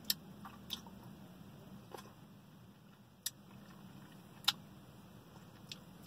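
Eating sounds: about six sharp, brief mouth clicks and smacks, spaced a second or so apart, as spoonfuls of soft-serve ice cream are eaten from a plastic spoon, over a faint steady low hum.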